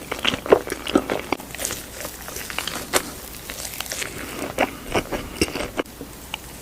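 A person eating close to the microphone, biting and chewing crunchy food, with irregular sharp crunches and clicks several times a second.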